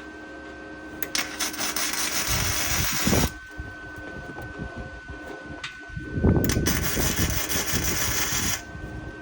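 Gasless flux-core MIG welder laying two short tack welds, each a couple of seconds of crackling sizzle, the second one louder. A steady thin high tone runs underneath.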